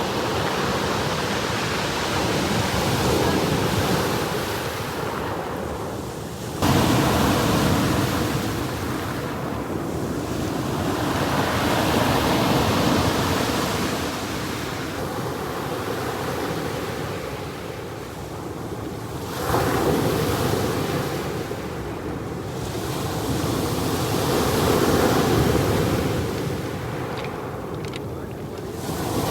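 Sea surf: waves breaking and washing ashore, swelling and fading in slow surges, with a wave crashing in suddenly at about six and a half seconds and again at about nineteen and a half seconds.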